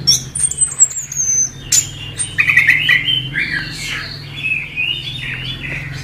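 Chestnut-capped thrush (anis kembang) singing: a high whistle falling in pitch, then a run of varied, quick warbled notes. A steady low hum runs underneath.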